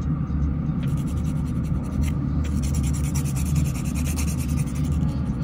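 Hand nail file rasping in repeated back-and-forth strokes across a fingernail, shortening a cracked natural nail. Under it runs the steady low hum of a nail dust collector's fan.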